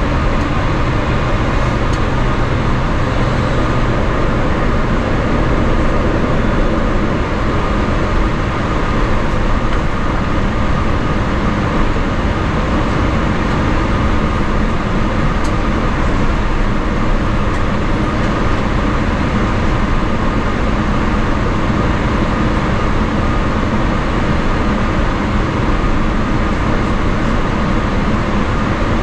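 Cabin noise of a Boeing 777-300ER taxiing, heard from a window seat over the wing: its GE90-115B engines running at taxi power as a steady drone with a few held tones, together with the rumble of the aircraft rolling along the taxiway.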